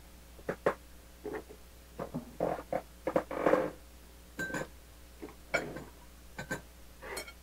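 Close-up eating noises: wet chewing and lip-smacking, a louder slurp about three and a half seconds in, and scattered clicks of a metal spoon against a ceramic bowl, a few of them ringing briefly.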